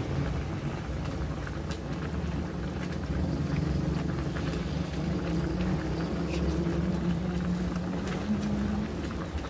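Chicken simmering in Coca-Cola sauce in a wok, the liquid boiling down, with scattered small ticks of bursting bubbles over a steady low hum.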